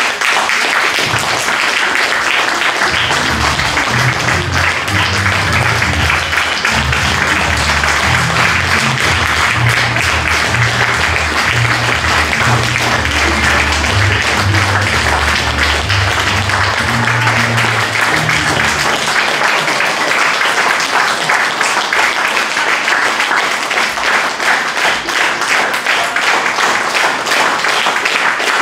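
Audience applauding steadily, dense clapping throughout. Music with a low bass line plays under it for most of the first two-thirds, then stops, and the applause goes on alone.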